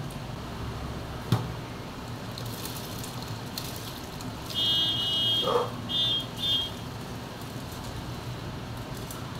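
Soaked rice being tipped from a steel bowl into a large steel pot, over a steady low hum. About halfway through, a high buzzing tone sounds three times, one long and two short, louder than anything else.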